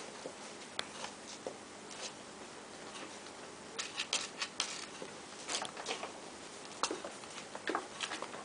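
Scattered light scratches and taps, bunched in short flurries: a kitten's claws and paws scrabbling on a wooden floor as it rolls and squirms in an unfamiliar post-surgery garment.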